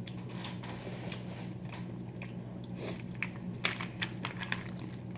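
Boiled crawfish being cracked, peeled and eaten close to the microphone: sharp crackling clicks of breaking shell, thickest about three and a half to four and a half seconds in, with the mouth sounds of chewing. A steady low hum runs underneath.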